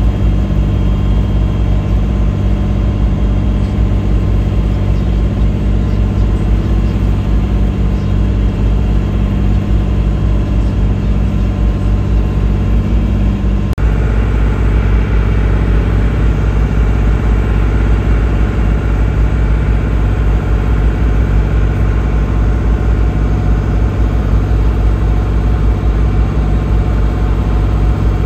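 A boat's engine running steadily under way, heard from on board with a hiss of water over it. About halfway through the engine note changes abruptly to a slightly different steady tone.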